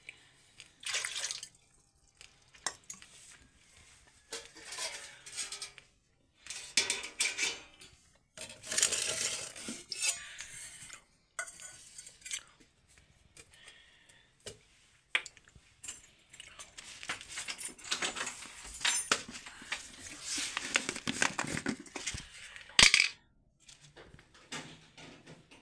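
Steel kitchen utensils and pots clinking and scraping in irregular bursts, with one sharp metal clank near the end.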